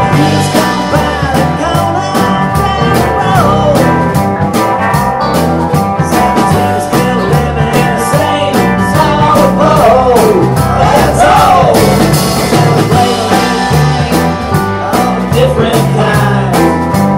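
Live rock-and-roll band playing: electric guitars, bass guitar and a drum kit keeping a steady beat. A lead line that bends in pitch rises over the band in the middle.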